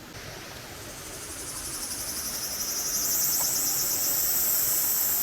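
Insects calling: a high, rapidly pulsing buzz that swells over the first three seconds and then holds steady.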